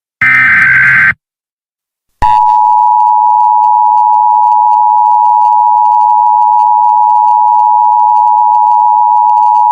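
Emergency Alert System header: a harsh, buzzing digital data burst about a second long, the last of the SAME header bursts. After a second of silence, the steady two-tone EAS attention signal starts and holds.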